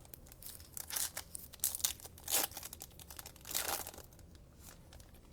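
A trading-card pack's foil wrapper being torn open and crinkled by hand, in several short rustling tears, the loudest about two and a half and three and a half seconds in.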